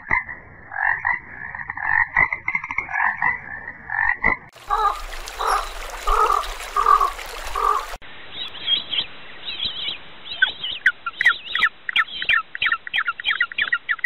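Frogs croaking in short repeated calls, with a cut partway to a lower call that repeats about twice a second. About two-thirds in, an African penguin brays: a run of short rising notes that quickens toward the end.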